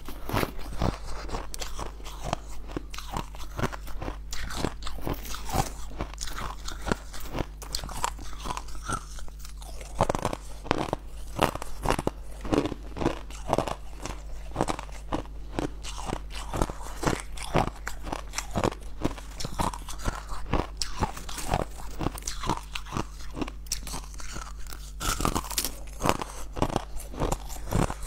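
Crushed ice crunched and chewed close to the microphone: a fast, unbroken run of sharp cracks and crunches, several a second.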